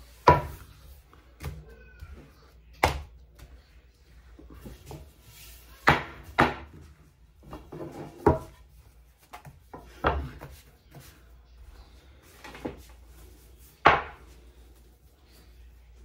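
Sharp knocks and clatters on a kitchen work surface while dough is being worked, about nine of them spread unevenly, with faint handling noise in between.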